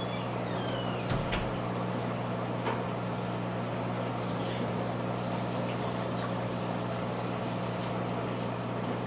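Steady electrical hum of aquarium equipment such as a pump, under a constant hiss of moving water and bubbles, with a couple of faint clicks about a second in and near three seconds.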